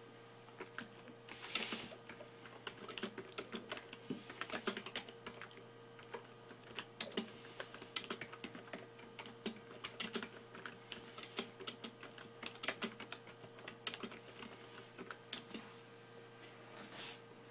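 Irregular light clicks and taps, several a second with brief pauses, over a steady low electrical hum.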